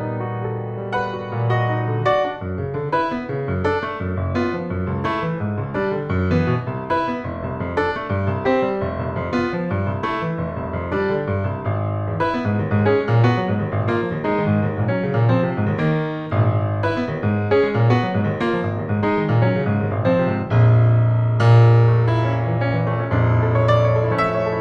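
Jazz piano playing a busy stream of notes over held low bass notes, growing louder about three-quarters of the way through.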